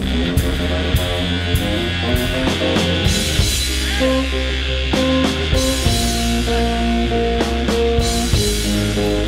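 Live rock music: electric guitar playing sustained notes over a drum kit, with regular drum and cymbal hits.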